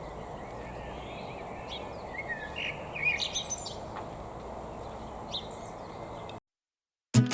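Small birds chirping and singing in short bursts of quick notes over a steady outdoor background hiss. About six seconds in the sound cuts to silence, and strummed acoustic guitar music starts near the end.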